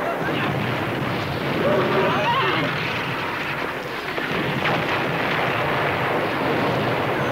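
Chaotic din of a panicked crowd and horses: shouting voices and neighing over a continuous rumbling noise, with a few wavering cries standing out about two seconds in.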